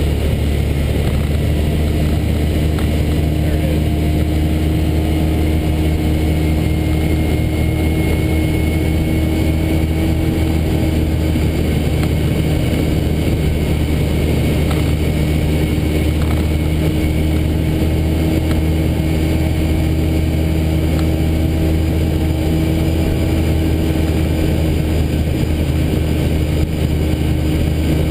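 Car driving steadily over a dirt lake bed: an even engine note under tyre rumble and wind noise on a hood-mounted microphone, with a few faint ticks from the surface.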